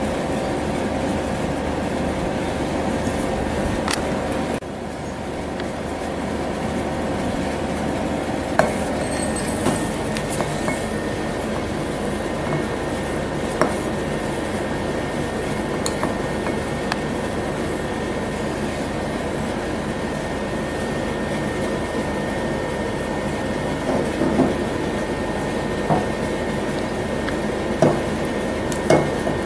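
A metal spoon clinking now and then against a glass jar and bowls as rolled oats and curd are spooned into the jar, a few sharp taps scattered among scraping. A steady background hum runs underneath and is the loudest thing throughout.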